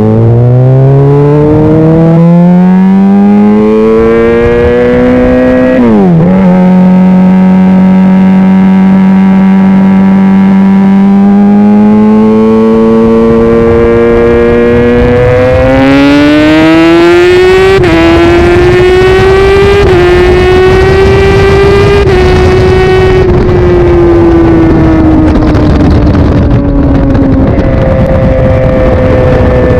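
Honda CBR600RR inline-four engine under way: the revs climb, drop sharply at an upshift about six seconds in and hold steady, then climb again through two quick upshifts before easing off to a steady cruise.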